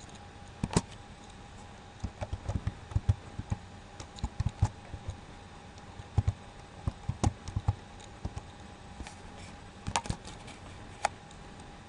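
Typing on a computer keyboard: irregular key clicks in short runs, over a faint steady hum.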